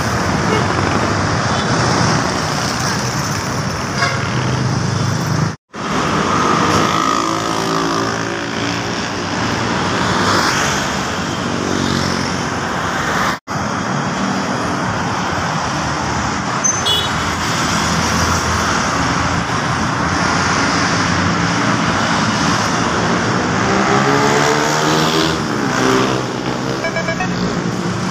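Busy city road traffic, with buses and cars passing and horns tooting. The sound cuts off sharply twice, and a pitched tone rises near the end as a bus comes close.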